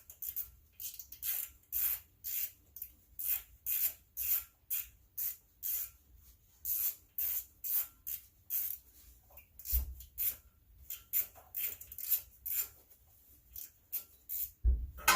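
Hand ratchet clicking in quick rasping strokes, about two a second, as a 10 mm bolt is backed out, with a couple of dull knocks about ten seconds in and near the end.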